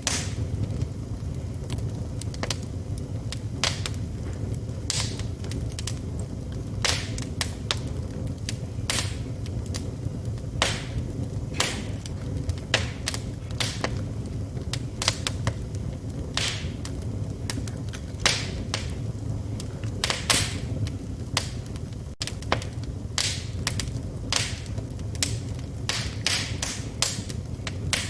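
Wood fire burning in a fireplace, crackling with frequent irregular sharp pops over a steady low rumble.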